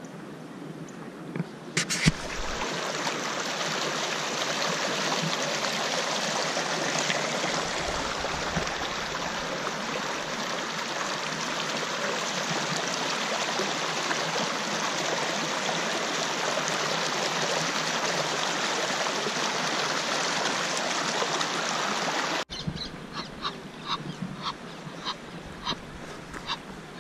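Water rushing steadily down a textured granite fountain channel, an even noise that starts after a brief knock about two seconds in and stops abruptly a few seconds before the end. A quick run of short, sharp calls from Egyptian geese follows.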